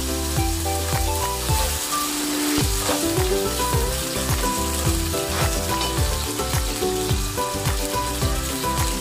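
Cubed potatoes sizzling as they fry in oil in a nonstick pan, turned over with tongs. Background music with a steady beat plays over it.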